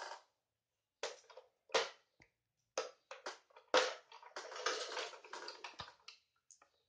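Plastic toy train, a 1992 Chain Fong talking train, handled and turned over by hand: a string of irregular clicks, knocks and short rattles from its plastic body and wheels, busiest in the second half.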